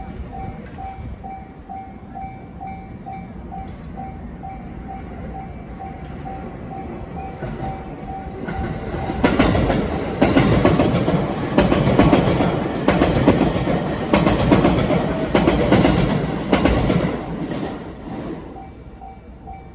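Japanese level-crossing warning bell dinging about twice a second. From about nine seconds in, a train passes over the crossing for roughly nine seconds, loud, with wheels clacking over the rail joints. The bell is heard again as the train fades.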